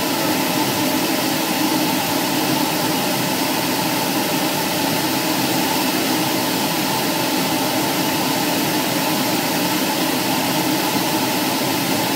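Steady drone of a light airplane's engine and propeller heard inside the cabin, holding an even pitch and level.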